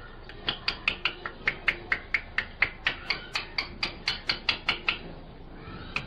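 Rose-ringed parakeet tapping its beak rapidly against the rim of a steel bowl: a quick run of sharp, slightly ringing taps, about five a second, that pauses near the end.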